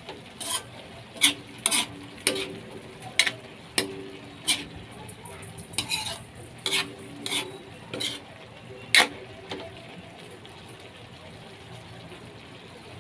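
Metal ladle scraping and clinking against a metal wok while stir-frying chop suey vegetables, about every half second, some strokes leaving a brief ring from the wok. A steady sizzle of the frying vegetables runs underneath, and after about nine and a half seconds only the sizzle remains.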